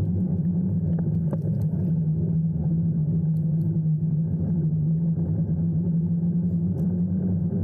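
A motor vehicle's engine running with a steady low drone, with a few faint ticks about a second in.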